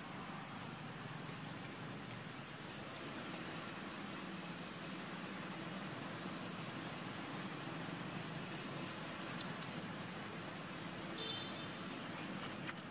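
An insect's steady, high-pitched trill: one unbroken tone over a faint hiss, with a short sharp chirp near the end.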